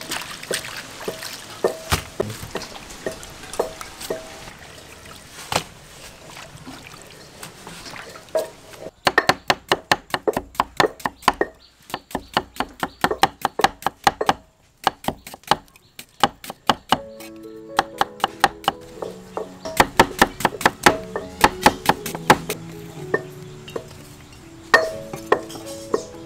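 Hands sloshing leafy greens in a metal bowl of water, then a cleaver slicing green fruit on a wooden chopping board in quick runs of strokes, with a short pause in the middle. Soft background music comes in under the chopping in the second half.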